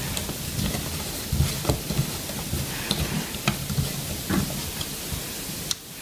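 Screwdriver driving screws into the plastic bottom plate of a Roomba 580 robot vacuum: scattered small clicks and scrapes of metal on screw heads and plastic over a steady hiss.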